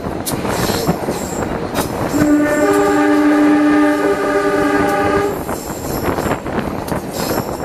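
Horn of the CC 203-18 diesel locomotive sounding one chord of several tones for about three seconds, starting about two seconds in, over the rumble and clatter of train wheels on the rails.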